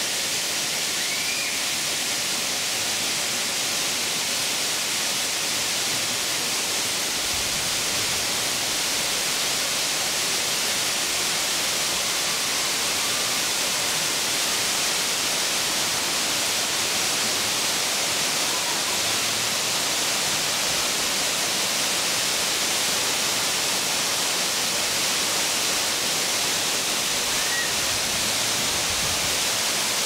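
Waterfall plunging into a pool: a steady, even rush of falling water.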